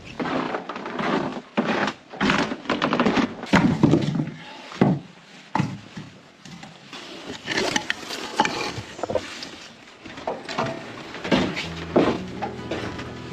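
Irregular series of wooden knocks and clatters, as of wood being handled or struck.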